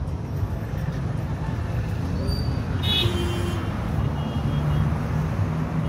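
Steady low rumble of road traffic, with a brief high-pitched tone about three seconds in.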